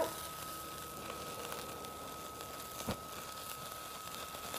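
Steady hiss and faint crackle of a BioLite Campstove 2+ burning wood pellets with burgers sizzling on its grill top and its fan running on low, with a thin steady whine and a single click about three seconds in.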